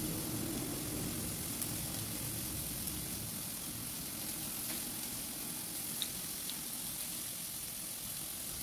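Steady sizzle of a marinated mutton kebab frying in a little oil in a hot frying pan.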